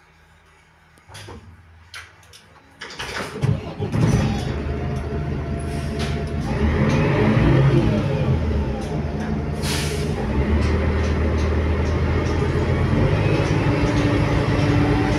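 Mercedes-Benz Conecto O345 G articulated city bus heard from inside its passenger cabin. After a few clicks, the engine comes in loudly about three seconds in and keeps running, its pitch rising and falling for a few seconds. There is a short hiss of air about ten seconds in.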